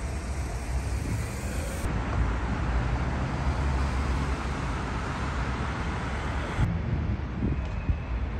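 Town-street traffic noise with wind buffeting the microphone, a steady rumbling haze that shifts abruptly twice.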